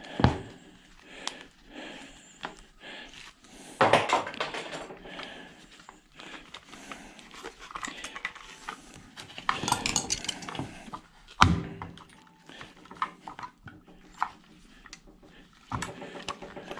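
Hand tools and metal ice-maker parts clinking and clattering as the unit is taken apart by hand, with scattered light clicks and a few louder knocks.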